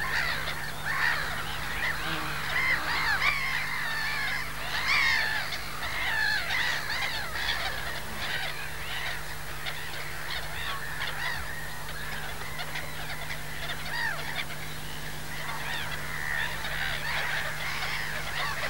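Gulls of a breeding colony calling, many short overlapping calls that bend up and down in pitch, forming a continuous chorus.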